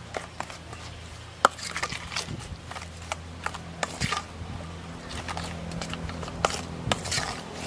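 A utensil clinking and scraping against a stainless steel bowl as a chili sauce is stirred, in irregular taps with one sharp clink about a second and a half in. A low steady hum runs underneath.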